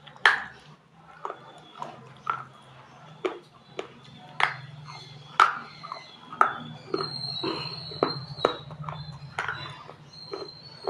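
Dry baked clay being bitten and chewed close to the microphone: sharp, separate crunches about once a second over a steady low hum.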